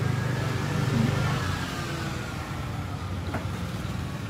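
A road vehicle's engine passing by over a steady traffic hum, its tone falling slowly as it goes. One light click about three seconds in.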